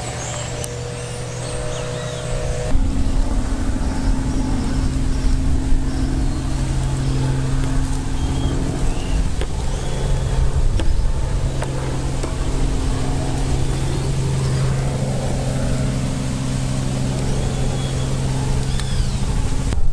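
A steady motor hum that changes abruptly to a lower, louder hum about three seconds in, with birds chirping now and then.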